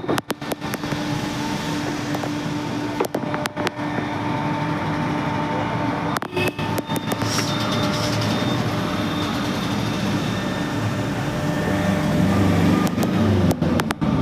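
CNC router running steadily, a constant hum under a noisy cutting wash, cut by several brief sudden dropouts.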